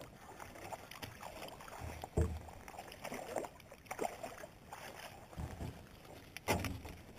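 A hooked smallmouth bass splashing as it is scooped up in a landing net at the side of a small boat. Several knocks sound against the boat, the loudest about two seconds in and another near the end.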